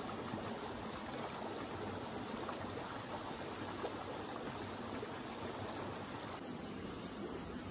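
Small rocky creek flowing over stones, a steady rush of running water.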